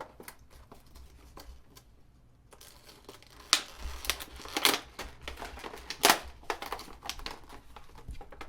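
Crinkling and rustling of things being handled, with scattered clicks that grow busier after a couple of seconds and three sharp knocks in the middle.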